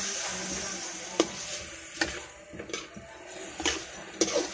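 A spatula stirring chopped pork, onion and bay leaves in a pan, knocking and scraping against the pan a handful of times over a faint sizzle as the meat sautés.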